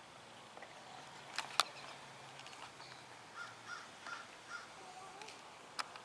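A crow cawing four short times in a row, faint, over quiet outdoor background, with a couple of sharp clicks before it.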